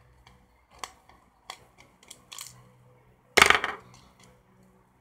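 Small plastic clicks and taps from a Lyft moustache light's housing and parts being handled and pried apart, with one much louder, short clatter about three and a half seconds in.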